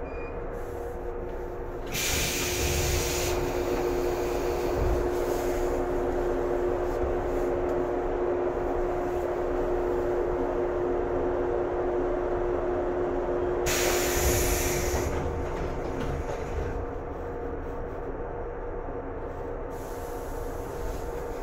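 JR 113-series electric train standing at a station, its onboard equipment giving a steady hum. A steady tone joins the hum about two seconds in and fades out around fifteen seconds in. Two short bursts of hissing air come about two seconds in and again around fourteen seconds in.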